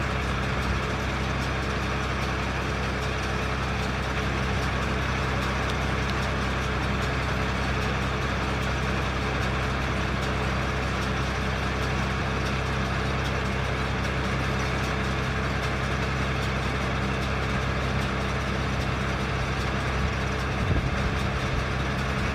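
A steady, unchanging engine hum with a hiss over it.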